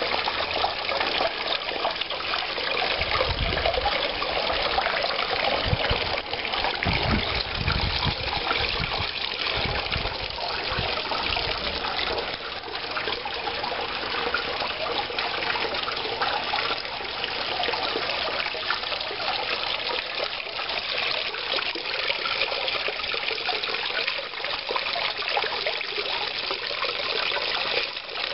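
Water spilling steadily over a small rock waterfall into a garden pond. There are a few low rumbling thumps between about three and ten seconds in.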